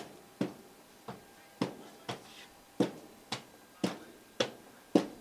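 Hand stamp knocking down on letters on a post office counter, about ten sharp knocks at roughly two a second in an uneven steady rhythm.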